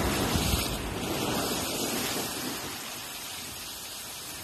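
Ocean swell surging and breaking against the foot of a rock ledge, the wash of white water fading away over a few seconds.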